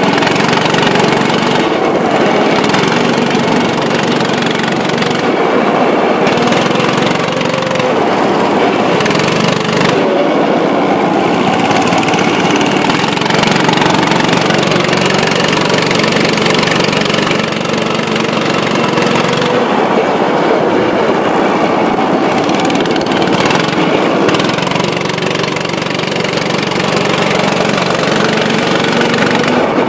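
Go-kart engine running hard at close range, its pitch rising and falling as the kart speeds up and slows through the corners.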